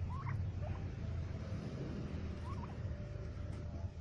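Domestic turkeys calling as they forage: a few short, rising calls, two close together at the start, another just under a second in and one more about two and a half seconds in, over a steady low rumble.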